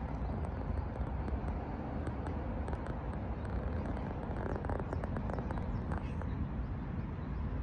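Wind buffeting the microphone outdoors: a steady low, gusty rumble, with a few faint clicks about two-thirds of the way through.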